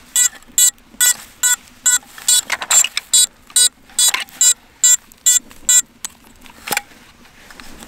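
5-inch FPV racing quadcopter beeping about three times a second, stopping about six seconds in as its battery is unplugged, then a single click.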